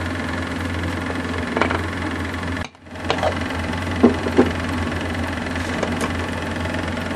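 Aluminium pressure cooker lid being fitted and closed: a few light metal knocks and clicks over a steady low hum. The hum cuts out for a moment about two and a half seconds in.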